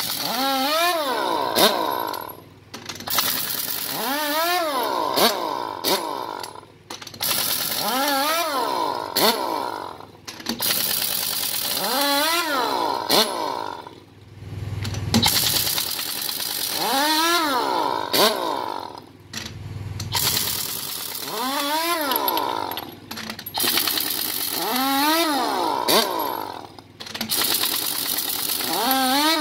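Pneumatic impact wrench buzzing the lug nuts loose on a semi-truck wheel, one nut after another: about seven bursts roughly four seconds apart, each whining up and then back down in pitch, with short pauses between nuts.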